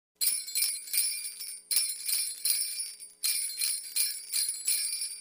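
Sleigh bells shaken in a steady beat, between two and three shakes a second, in three phrases with brief breaks, as the intro of a Christmas pop song.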